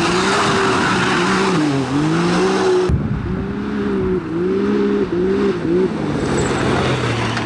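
Racing side-by-side (UTV) engines revving up and down again and again, with a hiss of thrown dirt in the first couple of seconds. The sound breaks sharply about three seconds in, and the later engine is a Can-Am Maverick X3's.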